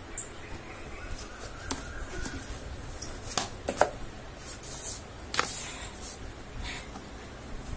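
Stiff cardboard board books being handled: slid out of their cardboard slipcase and set down on a table, giving a handful of sharp knocks and light scrapes over a low steady hum.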